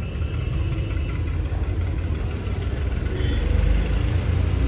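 Tractor engine idling, a steady low rumble.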